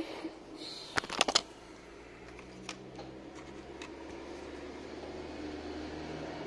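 Small hard parts of a mobile phone handled on a workbench: a quick run of four sharp clicks about a second in, then a few fainter ticks, over a steady low hum.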